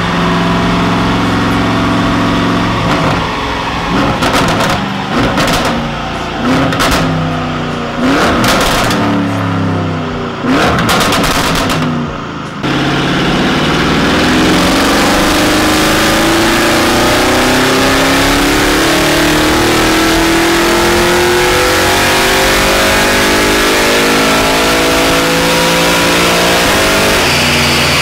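Audi RS7 (C8) 4.0-litre twin-turbo V8 blipped repeatedly, with sharp pops and bangs from the exhaust between the revs from the remap's added burble map. A little under halfway in it settles into one long pull under load on the dyno, engine speed rising steadily for about fourteen seconds, then it lifts off near the end.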